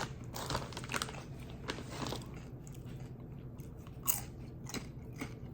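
Close-up crunching and chewing of Takis Kettlez Fuego kettle-style chips: irregular sharp crunches with quieter chewing between, the loudest crunch about four seconds in.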